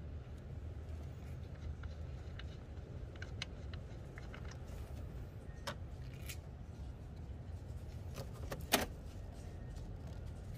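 Scattered light metallic clicks and clinks of hand tools working at the brake master cylinder's mounting nuts, over a low steady hum. The loudest click comes about three-quarters of the way through.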